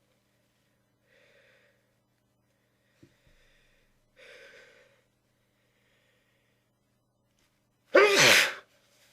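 A person's breath catching in a couple of faint, building inhales, then one loud sneeze into a tissue about eight seconds in, its pitch falling as it goes.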